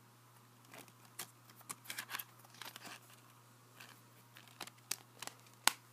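A plastic Blu-ray case handled by hand: scattered rustles and clicks of the plastic, with one sharp click near the end.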